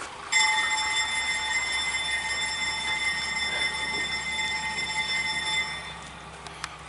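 A train's high-pitched air whistle sounds one steady blast of about five seconds and then cuts off, with a faint click near the end.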